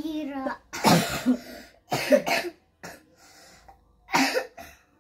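A sick young child coughing in three short bouts spread across a few seconds, each bout a quick cluster of two or so coughs.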